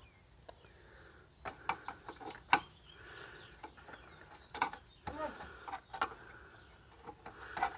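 Small screwdriver prying a pin-grid-array processor out of its socket on a circuit board: a scattered series of sharp clicks and light scraping as the chip works loose.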